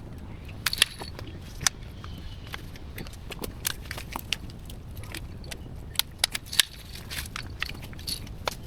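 Irregular sharp snaps and clicks of tree branches being cut and twigs breaking, with a steady low rumble underneath.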